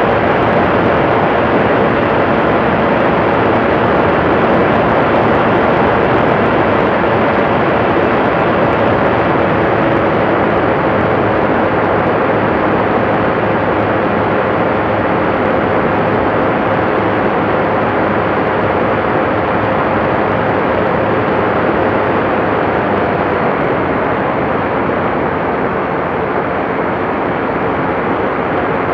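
Ultralight aircraft in flight: its engine and propeller running steadily under the rush of wind, easing slightly in level a few seconds before the end.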